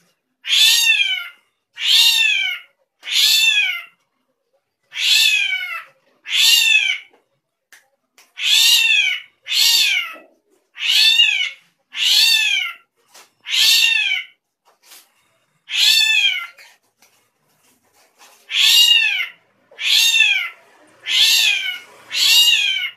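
Drongo (srigunting krantil) giving a series of cat-like mewing calls, about fifteen in all. Each call is a short arching mew, and they come roughly once a second with a few longer pauses.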